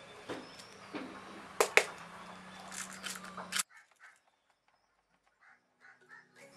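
Sharp clicks from handling a plastic BB container and its cap over a faint hum. The sound cuts off about three and a half seconds in, leaving near silence with a few faint ticks.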